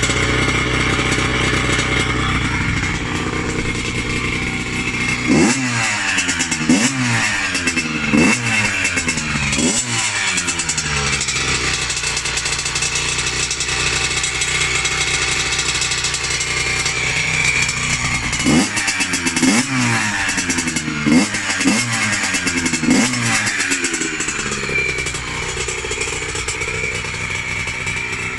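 Freshly rebuilt Yamaha YZ80 two-stroke single-cylinder engine running, blipped in two bursts of about four quick throttle revs each, the pitch shooting up and dropping back to idle each time, with steadier running between them.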